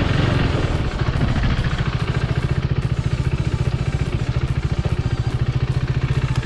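KTM RC 390's single-cylinder engine running at low revs with an even, fast throbbing beat. A broader rush of riding noise fades about a second in.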